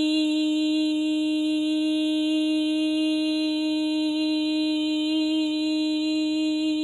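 A woman's voice toning a long 'ee' vowel on one steady held pitch, bright and unbroken throughout.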